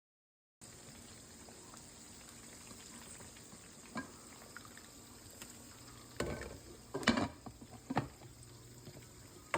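Chicken frying in oil with a steady sizzle, starting suddenly just after the beginning. A few sharp knocks and clatters of kitchen utensils come about four, six, seven and eight seconds in.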